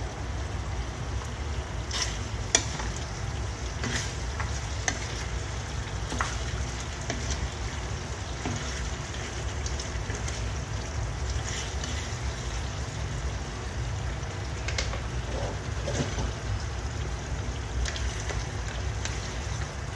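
Chicken menudo sizzling in tomato sauce in a nonstick frying pan while a wooden spatula stirs it, scraping and knocking against the pan now and then, with a sharp knock about two and a half seconds in and again near five seconds. A steady low rumble runs underneath.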